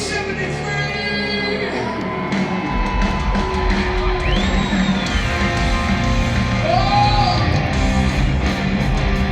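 Loud live rock band playing, with electric guitar notes sliding up and down in pitch over a low held note that shifts about a third of the way in, and a voice yelling.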